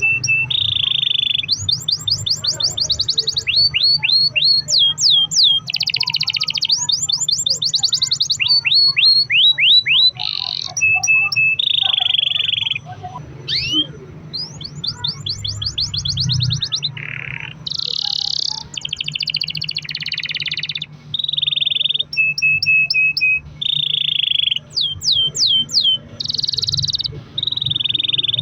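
Domestic canary singing a long, continuous rolling song: fast runs of repeated downward-sweeping notes alternating with buzzy trills, high-pitched, with only brief breaks between phrases.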